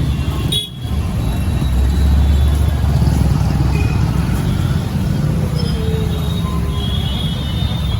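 Street traffic: motor vehicles running close by with a low rumble, loudest about two to three seconds in.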